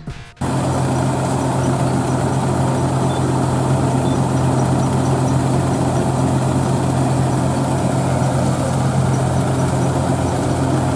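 Diesel engines of a Kubota compact tractor and a combine harvester running steadily, a constant low hum that starts about half a second in, while the combine's auger unloads grain into the tractor's trolley.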